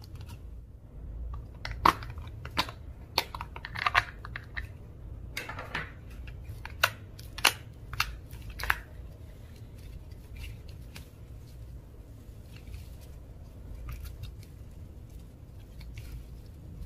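Slime being kneaded and pressed by hand: wet squelching with sharp pops, most of them in the first nine seconds, then quieter squishing.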